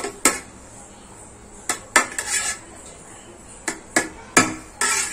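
A spatula clinking and scraping against a metal cooking pot as cooked biryani rice is turned over from the bottom. There are about seven sharp clinks, irregularly spaced, some in quick pairs.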